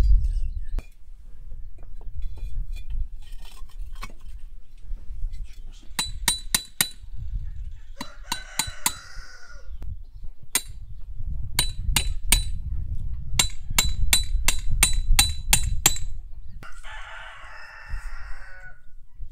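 A hammer strikes steel rebar rods in runs of sharp, ringing metallic clanks, up to about three blows a second. A rooster crows twice, briefly in the middle and once for about two seconds near the end.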